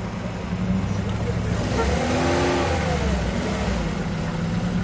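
Lada Niva's engine running under load as the car creeps onto a log seesaw, revving up and easing back about two seconds in.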